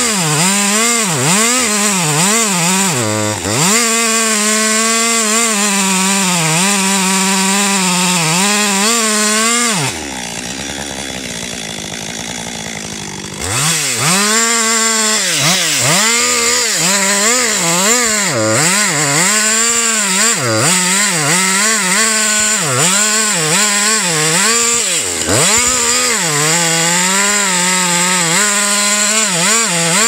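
Two-stroke chainsaw cutting into a large tree trunk behind the felling notch. Its engine pitch dips and recovers over and over as the chain bogs down in the wood. About ten seconds in, the engine sound drops to a quieter rumble for a few seconds, then it comes back at full cutting speed; near the end the engine winds down.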